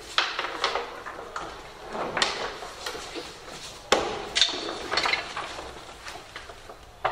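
A line-array speaker cabinet being lifted and set down onto a steel transport dolly: a series of clunks and knocks with scraping in between, the loudest about four seconds in.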